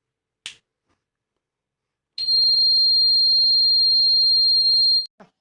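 Homemade door alarm's buzzer sounding one steady, high-pitched tone for about three seconds, starting about two seconds in and cutting off near the end. A single short click comes about half a second in.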